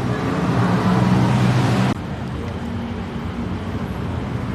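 Steady road-traffic or vehicle engine noise with a low hum. A louder hiss cuts off abruptly about two seconds in, leaving a quieter steady rumble.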